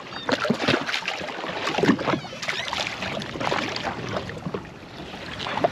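A hooked trevally splashing at the water's surface as it is drawn alongside a jet ski and grabbed by hand, with sloshing water and scattered short knocks from the handling.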